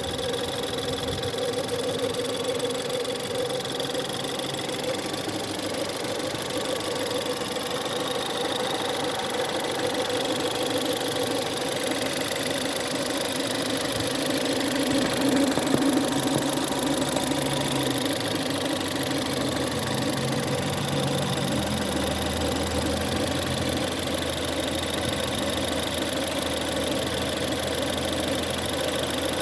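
Ford 1.6 EcoBoost turbocharged four-cylinder idling cold, with a steady howling, whining noise running over the engine. A deeper drone joins about two-thirds of the way through.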